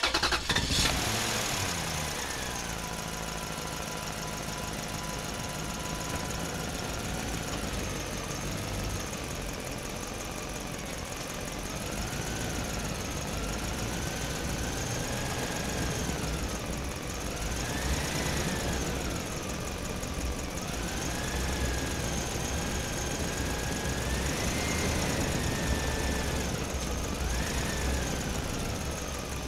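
Asphalt milling machine working, its engine a steady low rumble under a high whine that rises and falls in pitch every couple of seconds, while milled asphalt is loaded into a dump truck.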